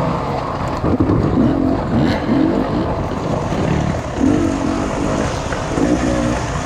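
Off-road motorcycle engine revving up and down as the throttle is opened and closed again and again, its pitch rising and falling every second or so.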